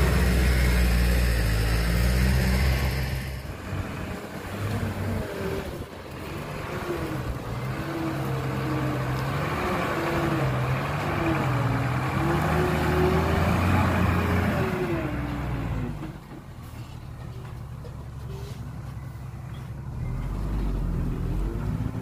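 Diesel dump truck engine running loud at first, then revving up and down repeatedly as the truck works, before dropping to a quieter steady run a couple of seconds before the end.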